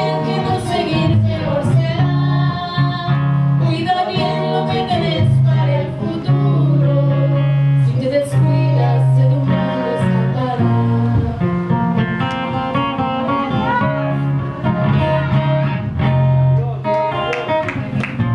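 Live worship song: guitar playing with singing over it.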